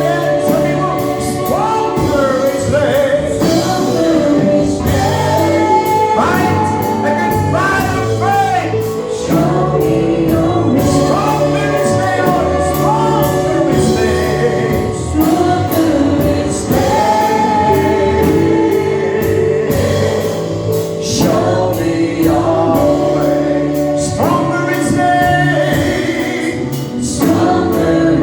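Gospel worship song: voices singing a melody over instrumental backing with steady bass notes and a regular beat.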